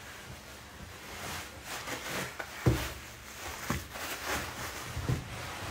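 Knocks and rustling as heavy chair parts and their packaging are shifted about by hand, with the loudest thump about two and a half seconds in and a few more near the end.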